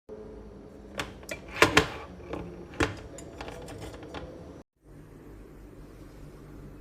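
A run of sharp clicks and knocks, loudest about a second and a half in, like the metal parts of an aluminium moka pot being handled and set down; after a brief break near the end only a steady low hiss remains.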